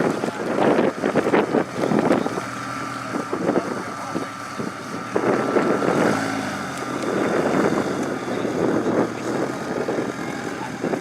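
Rock crawler's engine revving in irregular surges, with wind buffeting the microphone.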